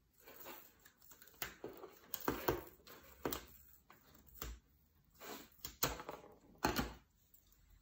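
Scissors snipping the ends off long allium stems: several crisp cuts spaced about a second apart, with rustling of the stems between them.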